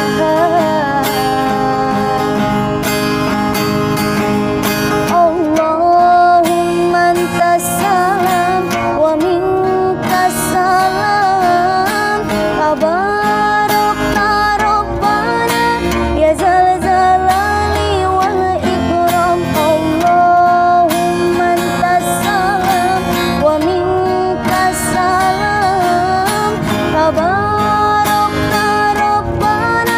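A woman singing sholawat, an Islamic devotional song, in long, ornamented phrases with sliding notes, accompanied by a strummed acoustic guitar.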